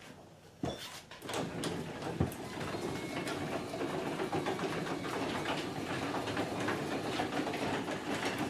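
A click, then from about a second in a garage door opener's motor runs steadily, driving the sectional garage door down along its rail until it closes.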